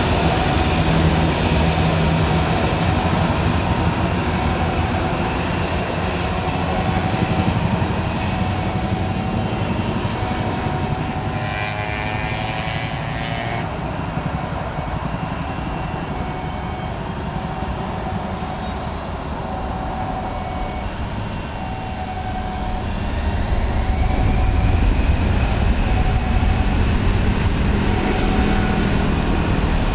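Airliner engines running loud and steady, with a rising whine starting about two-thirds through and a deeper, louder rumble building just after, as the aircraft powers up for take-off.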